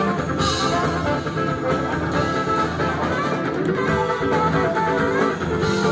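Live funk band playing an instrumental passage: guitar over bass and drum kit with a steady beat.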